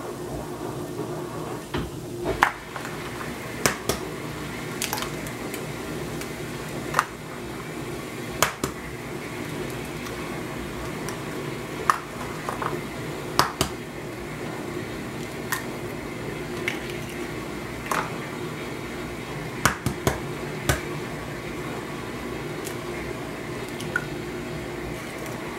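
Eggs being cracked one after another on the rim of a bowl: a series of sharp taps every second or two, some in quick pairs, as the shells are struck and broken and the eggs drop in. A steady low hum runs underneath.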